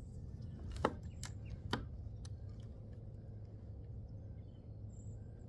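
A few sharp clicks, the two loudest about a second in and nearly a second later, over a faint steady low rumble.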